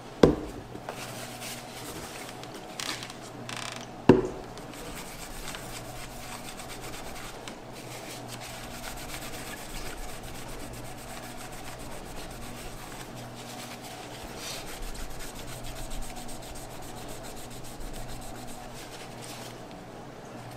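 A cloth wetted with rubbing alcohol rubbing back and forth over a CPU's metal lid, a steady scratchy wiping that cleans it ahead of the thermal paste. Two sharp knocks, one near the start and one about four seconds in, are the loudest sounds.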